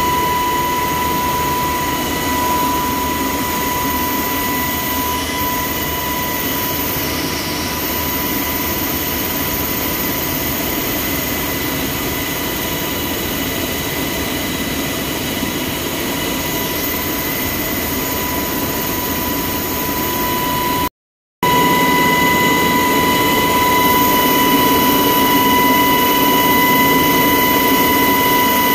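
Cabin noise inside a Black Hawk military helicopter in flight: a steady drone of turbines and rotors with a constant high whine made of several steady tones. The sound drops out completely for about half a second roughly three-quarters of the way through.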